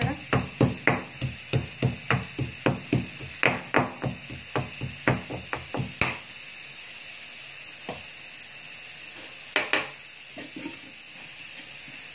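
Garlic cloves being pounded in a stone mortar with a pestle: steady thuds about four a second, stopping about six seconds in. A couple of brief clattering knocks follow near the end.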